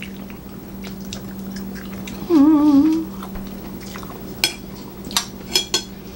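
Forks clinking against dinner plates during a meal, a few sharp clicks in the second half. A little over two seconds in, someone gives a short, wavering hummed "mmm" with their mouth closed, the loudest sound here. A faint steady low hum runs underneath.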